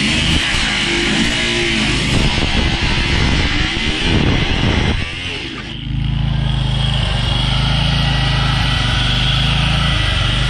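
Guitar music for about the first five seconds, then, after a brief dip, a steady motor hum that runs evenly to the end.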